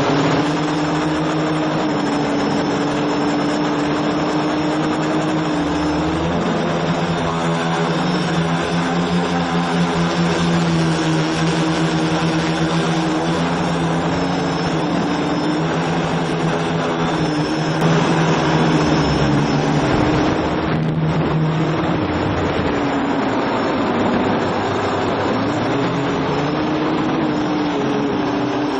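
Quadcopter's motors and propellers heard from its onboard camera in flight: a steady buzzing drone of several tones that shift in pitch as the throttle changes, most clearly around a quarter of the way in and again about two-thirds through.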